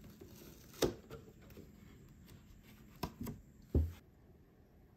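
A white paperboard cake box being opened by hand: light cardboard rustling and a few sharp knocks and taps as the lid and flaps are handled.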